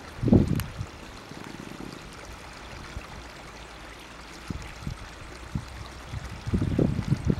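Water trickling steadily into a koi pond, with short low rumbles of wind buffeting the microphone, strongest just after the start and near the end.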